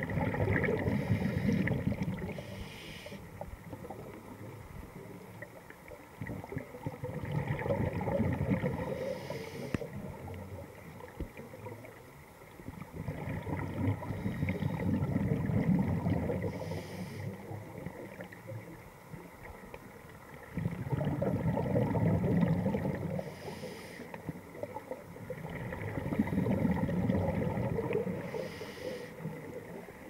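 A diver's breathing heard through the underwater camera: a swell of bubbling noise about every six seconds, each followed by a short hiss.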